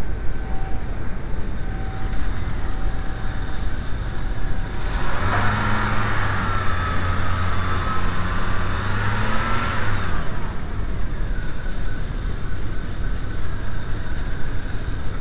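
VW T4 Eurovan's 2.5-litre five-cylinder petrol engine running at idle. About five seconds in a louder, higher whine rises over the engine sound, holds for about five seconds with a wavering pitch, then falls away again.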